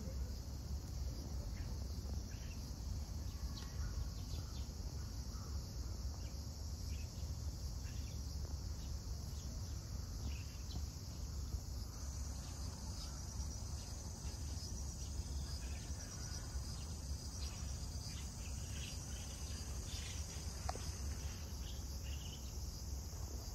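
A steady, high-pitched chorus of insects in the trees, over a low steady rumble, with a few faint short chirps here and there.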